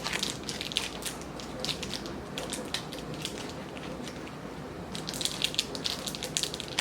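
Chocolate-bar wrapper crinkling and crackling as it is torn open and unwrapped, with a lull of about a second and a half in the middle.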